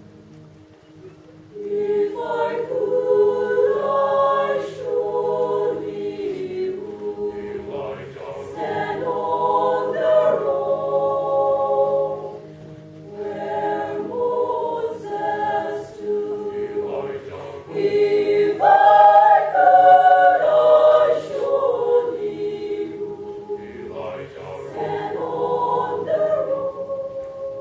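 Mixed choir of men's and women's voices singing a cappella, starting soft, then in full phrases that swell to their loudest about two-thirds of the way through and end on a held chord.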